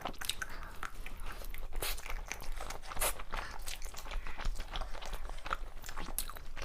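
Close-up chewing and crunching of food, with irregular crisp crunches several times a second.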